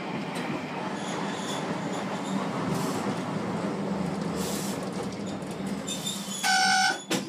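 Old Tosa Electric Railway tram with nose-suspended traction motors running, heard from inside the car: a steady rumble of wheels and motor with a low hum. Near the end a brief loud buzzer-like tone sounds, then a click.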